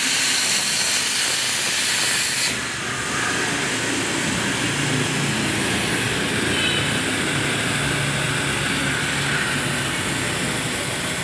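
100 A air plasma cutter on a CNC cutting table, hissing steadily. The highest part of the hiss drops off sharply about two and a half seconds in, leaving a steady hiss over a low hum.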